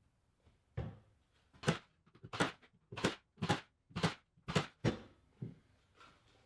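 A run of about nine sharp knocks on wood, roughly two a second, stopping about a second before the end.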